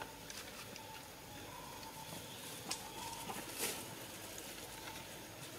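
Faint forest ambience: a thin steady tone that comes and goes, with a few soft clicks and a brief rustle around the middle.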